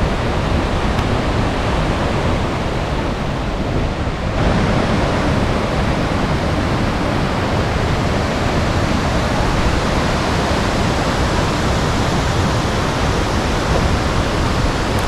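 Waterfall in strong flow: water pouring down with great force in a very loud, steady rush. About four seconds in the sound grows fuller and brighter.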